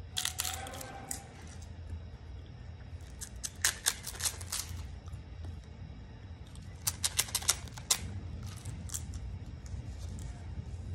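A thin, crisp oblea wafer being bitten and chewed, heard as clusters of crackly crunching clicks: one at the start, another about four seconds in and another about seven seconds in.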